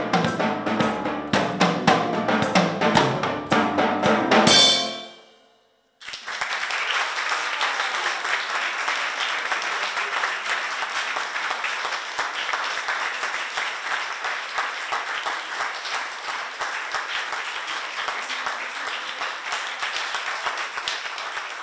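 Acoustic drum kit playing along with accompanying music, ending on a final cymbal crash about four and a half seconds in that rings out to a brief silence. Audience applause then starts and runs on steadily, easing slightly near the end.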